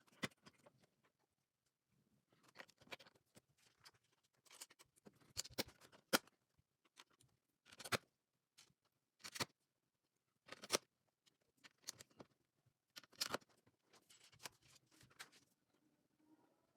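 Plastic LEGO bricks clicking as pieces are handled and pressed together, a string of separate sharp clicks with soft rustling between.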